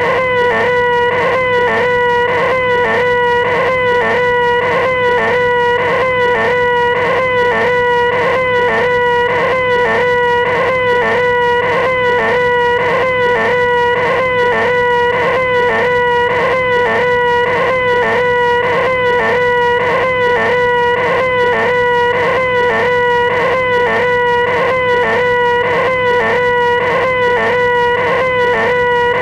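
A man's loud, nasal, high-pitched 'eeeeh' wail held without a break at one pitch, with a slight wobble about twice a second: the 'most annoying sound in the world', apparently looped.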